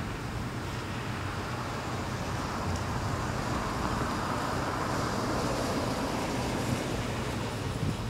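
Steady outdoor noise of wind and road traffic with a low rumble, swelling for a couple of seconds around the middle as a car goes by.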